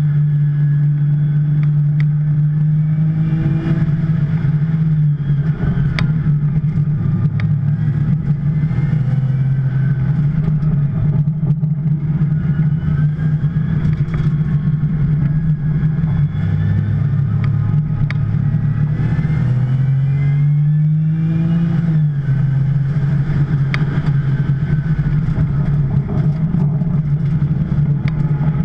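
2010 Porsche 911 Turbo's twin-turbo flat-six running hard at race pace, its engine note dropping as the driver lifts or shifts down about five and sixteen seconds in, then climbing steadily under acceleration near the end.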